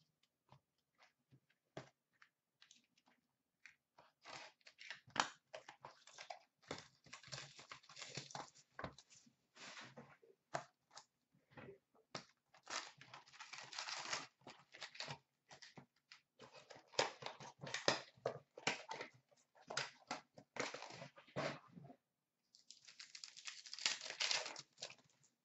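Crinkling, tearing and rustling of wrapping and foil packs as a box of Upper Deck Artifacts hockey cards is opened by hand. It comes as irregular crackly bursts with small clicks, busiest from about four seconds in.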